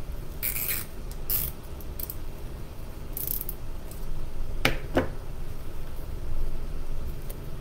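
Handling plastic deco mesh with scissors: three short rasping swishes of mesh and blades in the first few seconds, then two sharp clicks close together about five seconds in, over a steady low hum.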